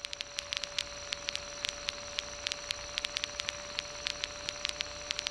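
Crackling static with a steady mid-pitched tone over the light aircraft's headset or intercom audio, irregular sharp clicks several times a second over a faint low background.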